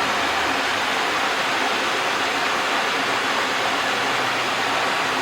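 Small waterfall on a stream, water splashing and rushing in a steady, even wash of noise.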